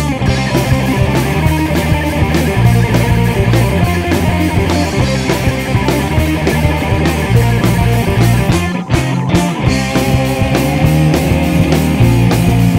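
Rock band playing: guitar over bass and a drum kit keeping a steady beat. There is a short break about nine seconds in, before the band comes back in.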